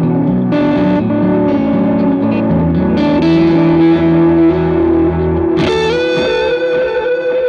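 Electric guitar, a Telecaster played through the D-Sound Fisherman British-style overdrive pedal into a Vox AC30 amp: a run of overdriven notes and chords, then a new note struck about two thirds of the way through that is held and rings with a slight waver.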